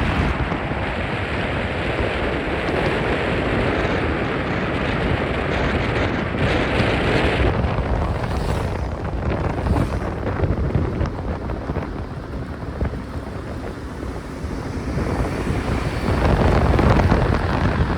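Wind buffeting the microphone over the rumble of a car driving along a road, swelling and easing in gusts.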